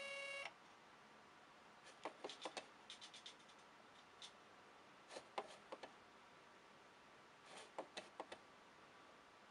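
Faint clicks of a computer mouse and keyboard in small groups. At the very start, the plotter's stepper motors whine briefly and stop as a jog move ends.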